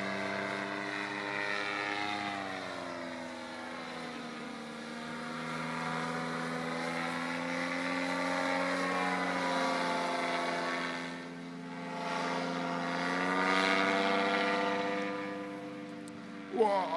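Tandem paramotor's M25 engine and propeller droning overhead, its pitch sagging and rising slowly a couple of times as the throttle and distance change. A brief louder sound comes just before the end.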